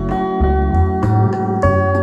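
Song with plucked guitar and a strong, deep bass line playing through a Harman Kardon Aura Studio 3 Bluetooth speaker, streamed from a phone.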